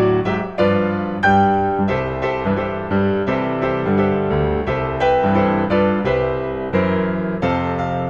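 Background Christmas music played on solo piano: notes and chords struck one after another, each ringing and fading.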